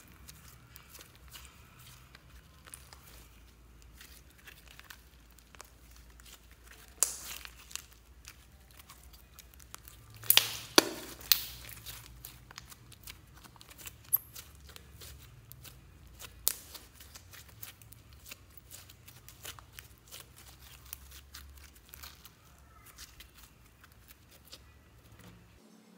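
Fluffy slime being squeezed, stretched and folded by hand, giving a steady run of small crackles and sticky pops. There are a few louder snaps, most of them a little before the middle.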